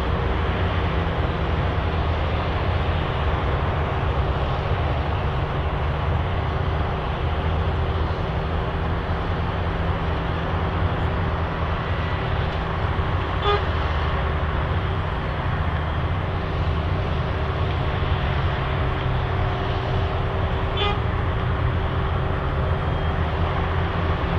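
Asphalt cold-milling machine at work: its diesel engine and cutting drum grinding up old runway asphalt, with millings running up the conveyor into a dump truck. A steady, dense rumble and grind, with two short beeps about seven seconds apart in the second half.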